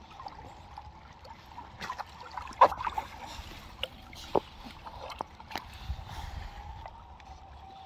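Water sloshing and splashing at close range as young fur seals swim around and nose the camera, broken by a run of sharp knocks and splashes, the loudest about two and a half seconds in.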